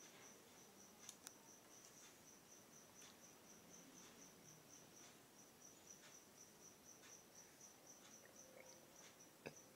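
Cricket chirping: a faint, steady, evenly pulsed high-pitched trill, with a few faint clicks about a second in and a sharper click near the end.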